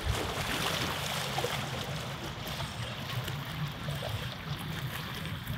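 Small waves washing and splashing against rocks, a steady rushing of water.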